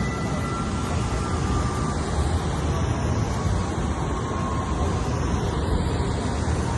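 Steady rumble and hiss of a moving vehicle, with faint thin whining tones that fade out about two seconds in.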